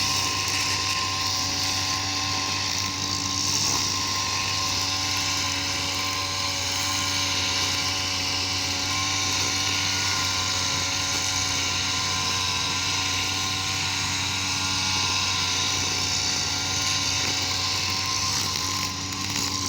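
Small engine of a grass-cutting machine running steadily at an even speed.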